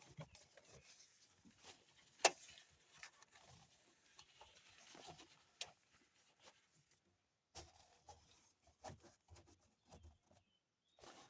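Faint rustling and scattered small clicks of magnetized fabric curtains being handled and put into place, with one sharp click about two seconds in.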